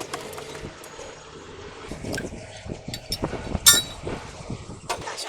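A series of metallic clinks and knocks, the sharpest a little before four seconds in, over a low steady hum.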